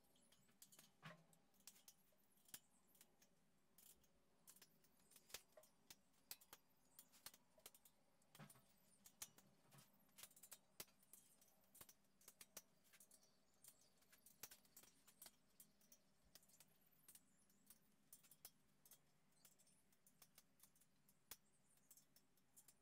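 Near silence broken by faint, scattered clicks and light taps of metal parts being handled as aluminum extrusion profiles are adjusted on a steel frame.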